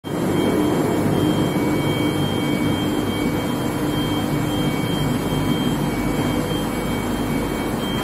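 Steady industrial din of a steel-bar induction hardening and tempering line running, with a thin high whine and a low hum held through it.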